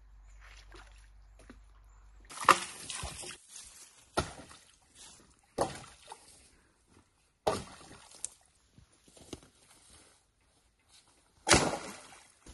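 Sloshing splashes and thuds in shallow bog water: a series of sudden splashes a second or two apart, starting a couple of seconds in, the first the loudest.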